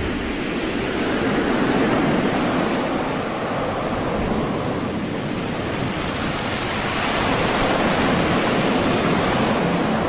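Heavy surf: waves breaking with a steady rushing of water that swells and eases slowly in loudness.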